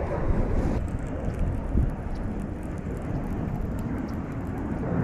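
Wind buffeting the microphone: a steady low rumble that swells and eases with the gusts.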